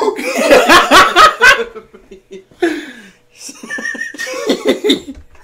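Hearty human laughter: a loud burst of rapid laugh pulses for the first second and a half or so, then quieter laughing and giggling.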